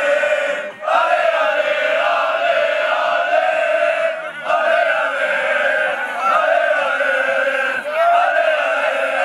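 A group of men singing a victory chant together in unison, long sung phrases broken by short pauses about a second in, just past four seconds and near eight seconds.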